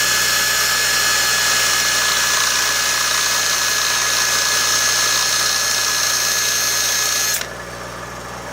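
High-speed grinding tool whining steadily as it grinds a chamfer onto the cut end of a metal air-hose fitting, then cutting off suddenly about a second before the end.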